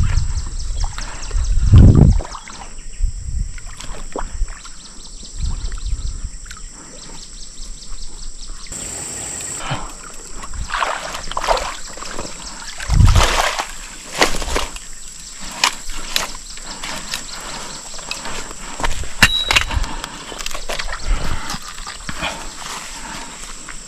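Water splashing and sloshing as a hooked fish is played in the shallows and brought toward a landing net, with irregular deep thumps and scattered sharp clicks.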